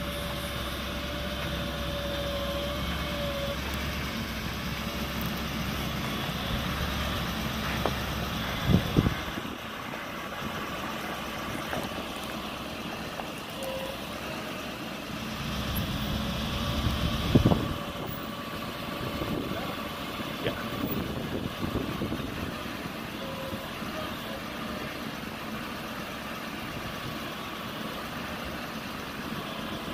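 GMC C5500's 6.6L Duramax diesel running steadily at idle while the truck's hydraulics work the Altec bucket boom. A low hum drops away about seventeen seconds in, and there are sharp knocks: a pair about nine seconds in and another just before the hum drops.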